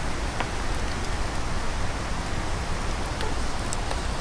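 A steady, even rushing hiss, with a few faint clicks from a plastic hook and pole being fitted onto a camping rack leg.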